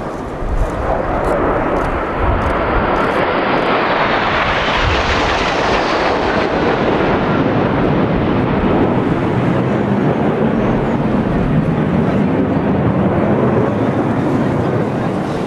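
Turbofan jet noise from a formation of RAF Red Arrows BAE Hawk T1 jets passing overhead: continuous, growing brighter and higher a few seconds in as the jets draw near, then holding steady.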